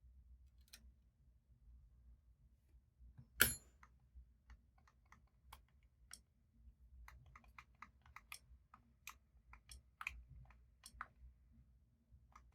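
Faint small plastic clicks of an iPod Mini's click wheel being pressed and tested, coming about two to three a second from about four seconds in, after one louder click.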